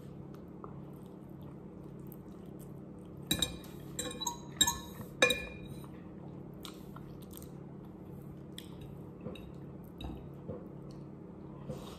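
A metal fork clinking and scraping against a ceramic plate in a quick cluster of sharp clinks about three to five seconds in, with the chewing of instant pansit canton noodles and soft mouth clicks before and after. A steady low hum runs underneath.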